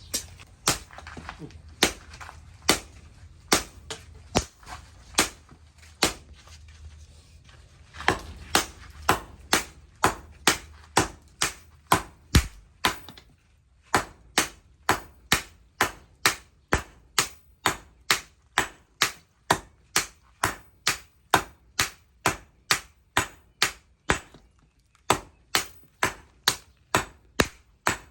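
Steady hammer blows on hot leaf-spring steel over an anvil, sharp ringing strikes at about one and a half to two a second, a little faster and more even in the second half.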